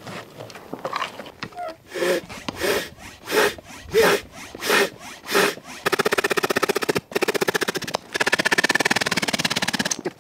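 Hand air pump being worked: about six whooshing strokes, roughly two-thirds of a second apart. About six seconds in, a fast, even rasping takes over, stops briefly and runs on for about two seconds more, louder than the strokes.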